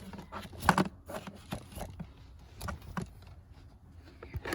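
Irregular clicks, knocks and scrapes of an infant car seat's tightening strap being pulled and the seat being handled. The loudest knock comes a little under a second in.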